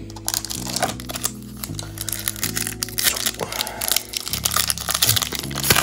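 Foil Pokémon booster pack wrapper being torn open and crinkled by hand, a dense crackling with a sharper snap near the end, over background music with changing chords.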